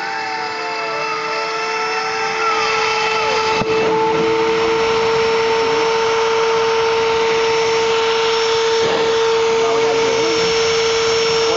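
Rotary tool on a homemade CNC router running with a steady high whine while its bit engraves into a board, with the machine's stepper motors whining in shifting pitches as the axes trace curves. The cutting noise grows louder between about two and four seconds in, with a sharp click near four seconds.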